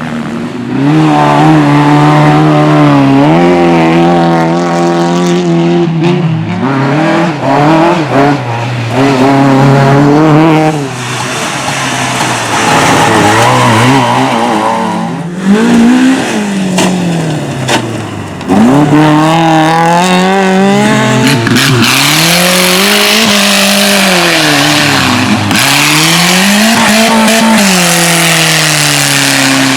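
Race car engine revving hard, its pitch climbing and dropping again and again as it accelerates, shifts and brakes through corners, with tyre squeal.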